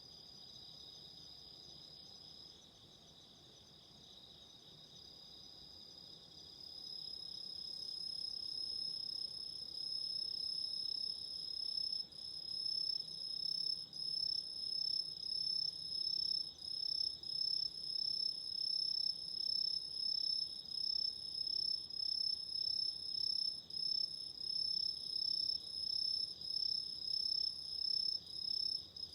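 Autumn insects chirping in a steady high trill. About seven seconds in it grows louder, and from about twelve seconds it swells and fades in a regular pulse a little more than once a second.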